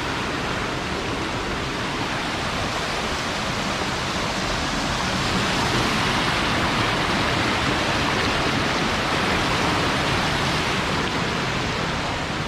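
A river rushing over rocks: a steady, loud hiss of running water that grows a little louder midway.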